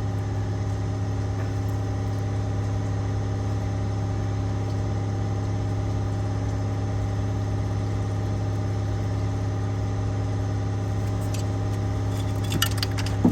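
Steady mechanical hum of an idling engine, a strong low drone with steady overtones. A few light clicks and rattles near the end.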